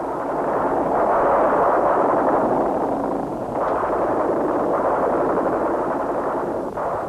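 Dense rumble of battle gunfire and explosions, a continuous crackling din that swells over the first second or two and stays loud.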